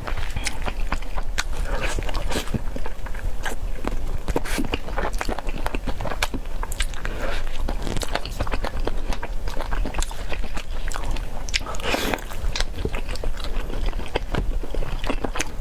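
Close-miked chewing and biting of spicy peanut chicken: a continuous run of small wet clicks and crunches.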